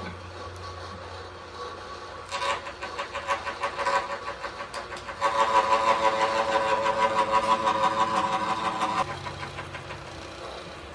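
Atlas milling machine running, its cutter biting into the metal of a tool post slot from about two seconds in with a fast, even chatter. The chatter gets louder about five seconds in and stops near nine seconds, leaving the machine's hum.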